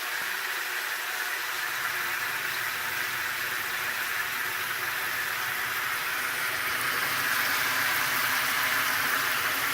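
Steak sizzling in a frying pan: a steady hiss that grows slightly louder over the last few seconds.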